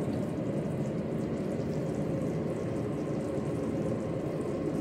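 Steady rushing background noise with a faint, even hum, with no separate events.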